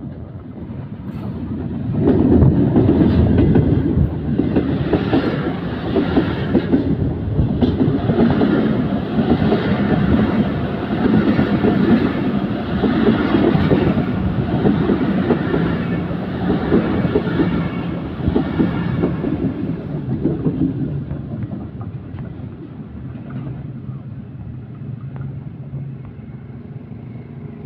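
A Pakistan Railways ZCU-20 diesel-electric locomotive passes close by about two seconds in. Its passenger coaches follow, rolling past with a loud rumble and wheels clattering over the rail joints, and the sound fades from about twenty seconds in as the train draws away.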